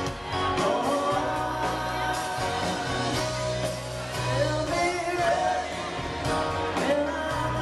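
Live string band playing loudly, with acoustic guitars, fiddle, bass and drums under a man singing the lead vocal, heard through a small camcorder's microphone from within the crowd.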